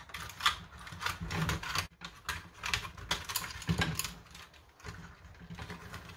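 Irregular clicks and knocks of hard plastic parts of a disassembled Nerf Vulcan blaster being handled and pressed together.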